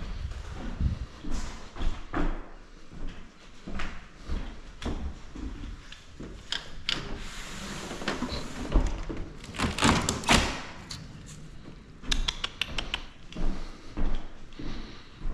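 Scattered knocks, thumps and scuffs in a bare, empty room, with a quick run of clicks about twelve seconds in.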